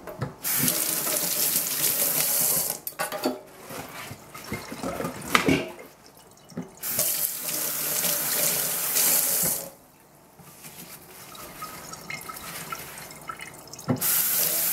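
Kitchen tap running in three spells, turned on and off, with a few knocks and clatters in between.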